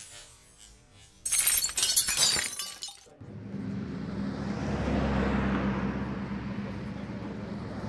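Glass-shattering sound effect: a sudden loud crash with tinkling shards about a second in, lasting under two seconds. Then steady street traffic noise with a low engine hum.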